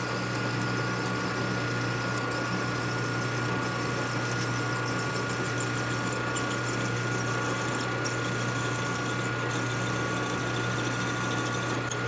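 Metal lathe running steadily while a drill bit is fed into a part, giving a constant motor hum with a faint higher whine.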